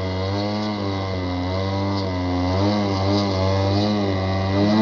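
Radio-controlled model airplane's small combustion engine running in flight, its pitch wavering up and down as the model maneuvers.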